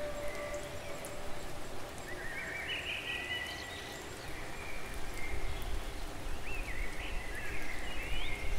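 Background nature ambience: birds calling in short chirps that rise and fall, in several clusters, over a low steady rumble.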